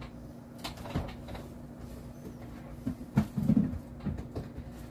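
Scattered knocks and clicks of a freezer door and plastic storage containers being handled, a few about a second in and a louder cluster with a dull thud a little after three seconds, over a steady low hum.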